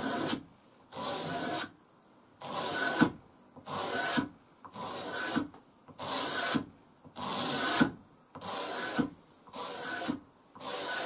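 A Stanley knife blade scraped in repeated strokes across a leather strop, about nine strokes one every second or so, clearing off old polishing compound left from the last sharpening.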